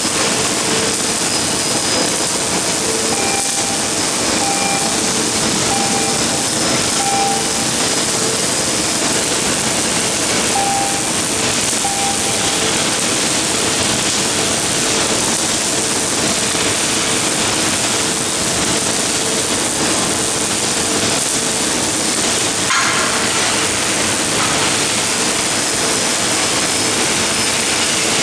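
MIG welding arc from a CNC gantry welding machine, a steady hiss with faint short tones coming and going.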